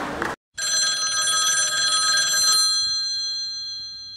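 A woman's sung verse cuts off abruptly, then a bell starts ringing suddenly with several bright metallic tones, holds for about two seconds and slowly dies away.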